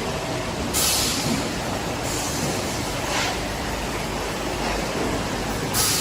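Boba pearl making machine running with a steady mechanical noise, with short hisses about a second in, about three seconds in and at the very end.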